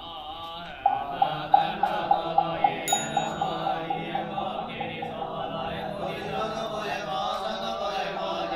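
Buddhist monks chanting sutras in unison, kept to a steady knocked beat of about three strokes a second. A small bell rings once, high and brief, about three seconds in.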